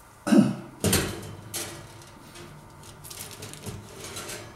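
Kitchen things being handled: two sharp knocks about half a second and a second in, then lighter clicks and rattles.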